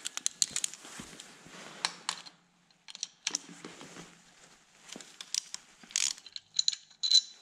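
Irregular light metallic clicks and taps of a nut driver and small bolt hardware as the 8 mm bolt holding the cylinder head is undone, with a few sharper clinks near the end.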